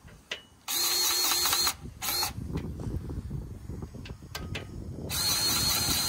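Grease gun pumping grease into a grease fitting in three bursts: one of about a second, a short one right after, and another near the end.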